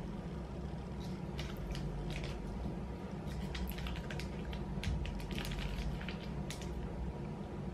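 Biting into and chewing a piece of sticky dried fish snack: irregular short, crisp crunches and clicks spread over several seconds.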